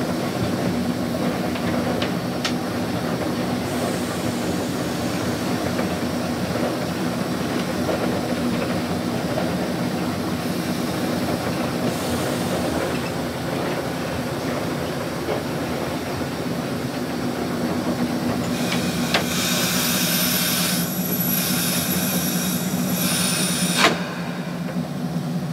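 Cab ride in a Class 05 diesel shunter: the diesel engine runs with a steady low hum under rattling wheel-and-rail noise as the locomotive moves. From about three-quarters of the way in a hiss comes up and stops with a sharp click, as the driver works the red-knobbed levers.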